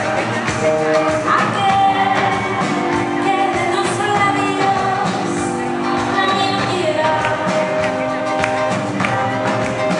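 A woman singing live with acoustic guitar and a band, in sung phrases with long held notes, heard from the audience in a concert hall.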